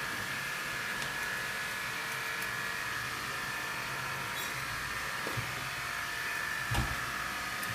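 Steady electric whine of a running machine, with a few faint snips of grooming scissors trimming a dog's leg hair and a soft thump about seven seconds in.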